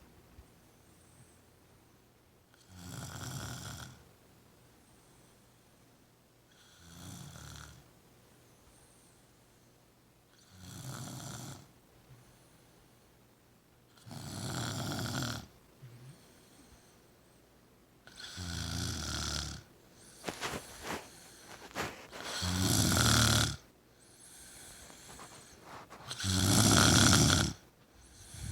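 A person snoring deeply and regularly, seven long rasping snores about four seconds apart that grow louder toward the end. A short run of clicks comes about two-thirds of the way through.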